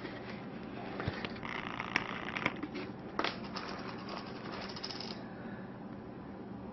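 Faint close-up handling noise: soft rustling with a few small sharp clicks in the first half, as fingers and steel tweezers work at a botfly warble hole in a rabbit's neck.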